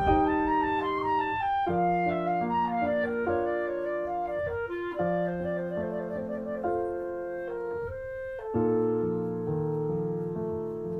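Instrumental background music: piano chords under a held woodwind melody, with a short pause and a new, louder chord about eight and a half seconds in.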